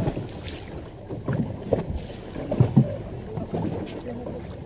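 Choppy sea water slapping and knocking against the hull of a rigid inflatable boat drifting on the swell, with wind on the microphone. The slaps come irregularly, the loudest nearly three seconds in.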